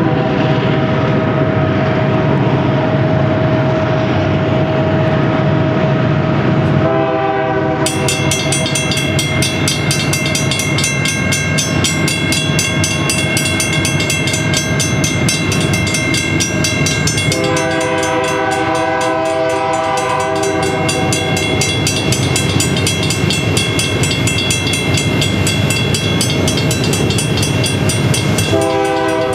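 Union Pacific diesel freight locomotive's air horn sounding a chord of several notes in separate blasts: a short one about seven seconds in, a longer one around the middle, and another at the end, over the steady rumble of the approaching train. A grade-crossing bell rings rapidly and steadily beneath it.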